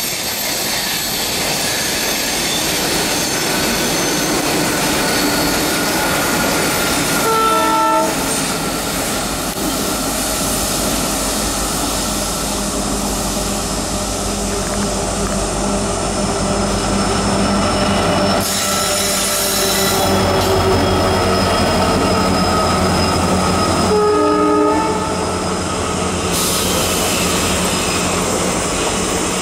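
An Indian Railways WDP-4D diesel locomotive, with its EMD 16-cylinder two-stroke engine, approaching and running past at the head of an express, its engine hum building as it nears, under steady squealing from the wheels as the train slows to a halt. Two short horn blasts sound, one about 8 seconds in and one about 24 seconds in.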